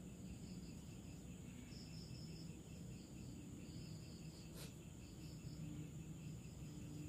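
Faint night insects, crickets chirping in an even, pulsing rhythm against a quiet background, with one soft click about four and a half seconds in.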